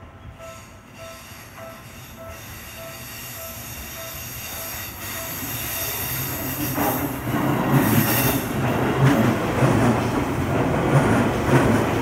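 Japanese level-crossing warning bell dinging steadily, about two and a half times a second. A Seibu Railway electric commuter train then approaches and passes over the crossing. It grows steadily louder, drowning the bell, with a high hiss from the rails and a rhythmic wheel clatter from about seven seconds in.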